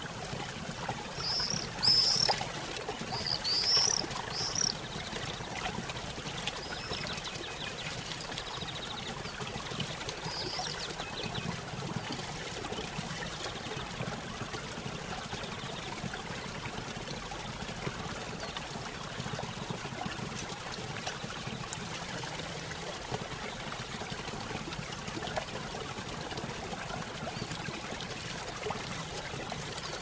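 Waterfall rushing steadily, with a songbird chirping a quick run of short calls in the first few seconds and once or twice more about ten seconds in.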